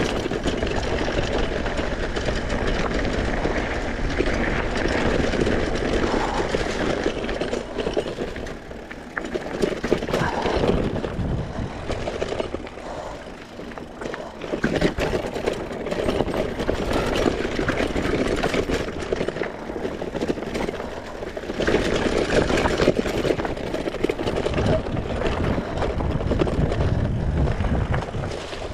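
Riding noise of a mountain bike on a trail: a continuous rough rumble that rises and falls, dipping briefly about halfway through.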